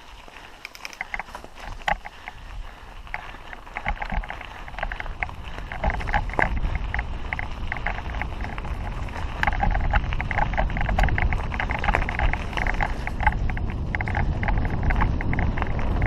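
Mountain bike riding a dirt trail: the bike rattles and clatters over the ground in a dense run of clicks, with wind rumbling on the helmet-mounted camera's microphone. The wind rumble grows louder about six seconds in and stays up.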